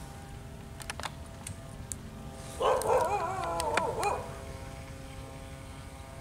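An animal's wavering, pitched call lasting about a second and a half about halfway through, with a few sharp clicks scattered around it.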